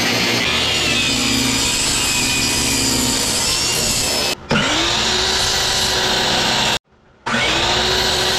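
Power woodworking tool running and cutting wood: a steady loud machine whine over the noise of the cut. It stops abruptly twice, and each time it comes back its motor pitch climbs briefly and then holds steady.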